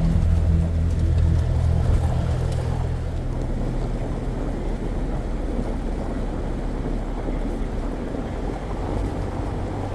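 Jeep driving on a trail: a steady low engine drone with road and wind noise, the deepest hum easing off over the first few seconds.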